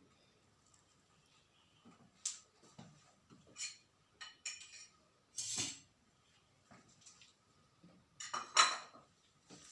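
Kitchen pots and metal utensils being handled: about five separate clinks and knocks, the loudest near the end.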